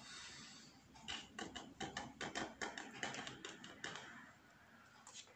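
Trading cards being handled in the hand, a quick irregular run of light clicks and snaps for about three seconds.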